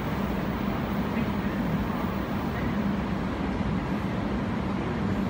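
Steady low rumble and hum of a Taiwan High Speed Rail train pulling out of the station, heard from a distance.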